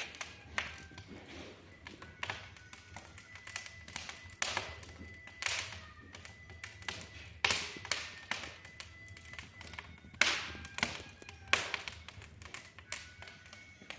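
Irregular taps and knocks, a few of them louder and some followed by a short ringing tone like struck metal.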